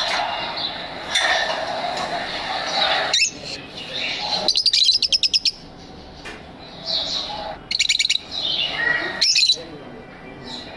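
Lovebirds chirping and chattering, with two quick runs of sharp repeated chirps, about eight a second, roughly halfway through and again a few seconds later.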